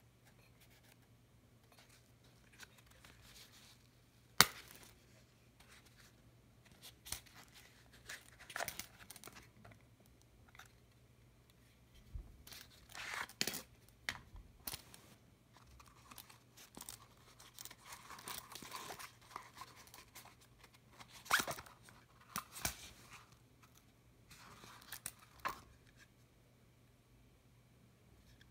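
Hands handling a nylon double magazine pouch: scattered rustling and scraping of the fabric with sharp clicks from its snap fasteners, the loudest click about four seconds in and another a little past twenty seconds.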